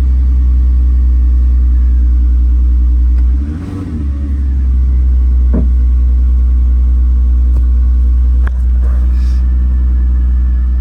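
Audi TT's freshly rebuilt engine running cold at idle just after its first start, with a steady low note. About three and a half seconds in the revs briefly sag and recover.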